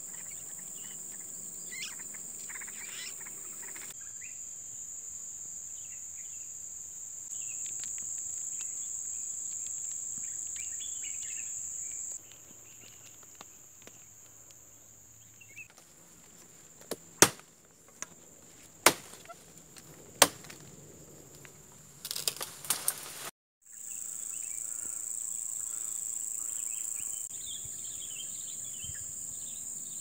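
Steady high insect drone with scattered bird chirps, broken in the middle by three sharp machete chops into a sapling trunk, about a second and a half apart, followed by a brief crackling.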